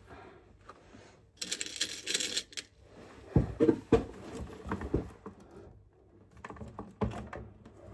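Picture frames being handled against a wall: scattered light clicks and knocks, a short scraping rustle about a second and a half in, and a few sharper knocks around three to four seconds in.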